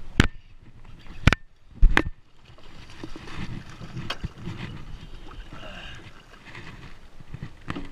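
Three sharp knocks in the first two seconds, then steady water noise around a small aluminum jon boat, with a couple of fainter knocks later.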